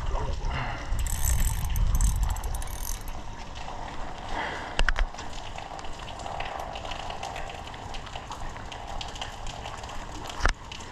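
Fishing reel being wound, its gears and ratchet clicking, with heavy wind-and-handling rumble on the microphone over the first few seconds and a couple of sharp knocks.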